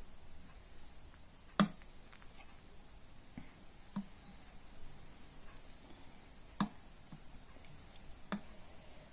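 Kitchen handling noise: about four sharp light clicks a couple of seconds apart, the first the loudest, from a plastic oil bottle and a metal spoon being handled while oil is poured into the spoon.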